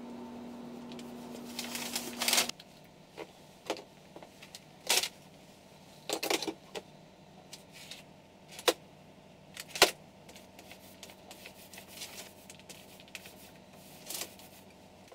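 Kraft paper rustling and light knocks and clicks as a wooden shelf rail is handled and painted with a small paint roller, the sharpest click a little under ten seconds in. A steady hum runs under the first couple of seconds and stops abruptly.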